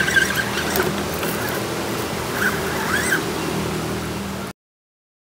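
Electric motor and gears of an RC rock crawler whirring steadily as it climbs over rocks, with birds chirping over it. The sound cuts off suddenly about four and a half seconds in.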